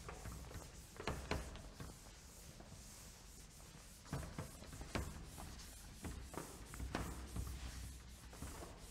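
Faint wiping of a chalkboard with a handheld eraser, with a few scattered light knocks and taps.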